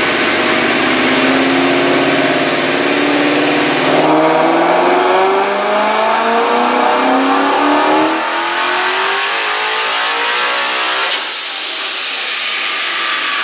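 The supercharged 5.0 Coyote V8 of a 2016 Mustang GT making a full-throttle chassis-dyno pull. The engine note climbs steadily for several seconds with the Vortech supercharger's whine rising over it. About eleven seconds in the throttle closes and the revs fall away.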